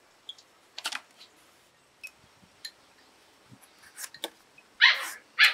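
Scattered light clicks and scrapes from a plastic vegetable peeler being handled and set to a green mango, then a dog barks loudly twice near the end.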